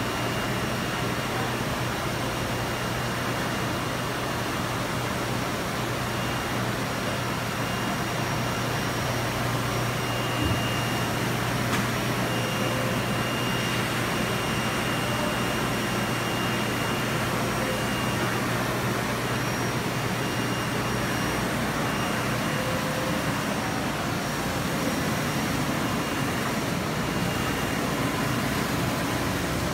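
Gandinnovations Jeti 2030-48 UV flatbed printer running: a steady mechanical whir with a low hum, and a faint high whine that comes and goes.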